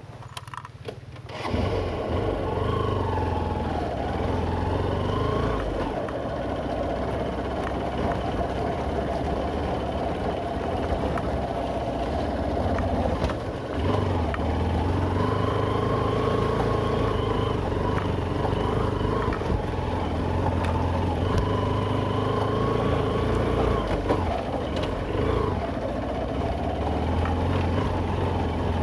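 Motorcycle engine running under way on a dirt track. It jumps louder about a second and a half in, and its pitch then rises and falls repeatedly as the throttle is opened and eased.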